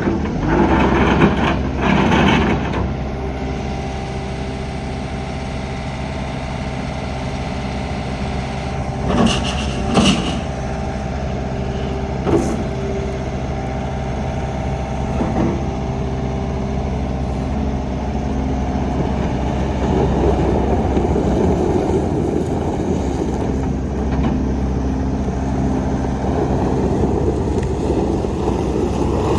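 Gehl V270 skid steer loader's diesel engine running steadily. There are a few short louder bursts near the start and around ten seconds in, and it runs louder through the last third.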